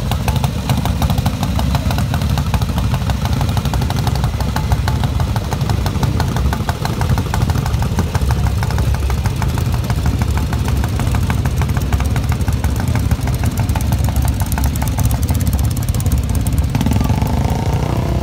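Several vintage British motorcycle engines idling and running together: a steady, rapid, overlapping patter of exhaust beats.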